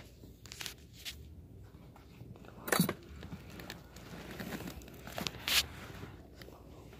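Close soft rustling and handling noise from clothing and a phone held in the hand, in a few short bursts, the loudest about three seconds in.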